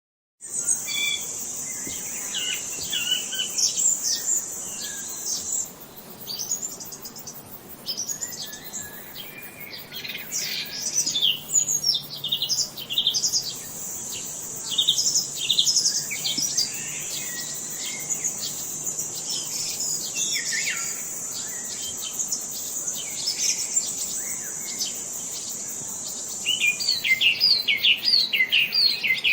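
Several songbirds chirping and trilling, with a fast run of repeated notes near the end. Under them is a steady high-pitched insect drone that drops out for several seconds in the middle and again near the end.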